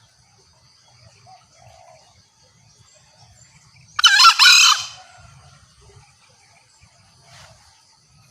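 Green junglefowl giving a single short two-part call about halfway through, over a steady high chirring of insects.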